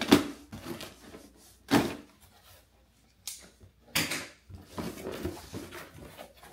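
Cardboard shipping box being cut open and handled: a series of sharp rips and scrapes, the loudest at the very start and others at about two and four seconds, with lighter rustles and knocks between.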